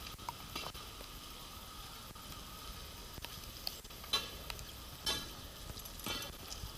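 Steady hiss of rain on a wet city street, with a few brief louder swishes about four, five and six seconds in.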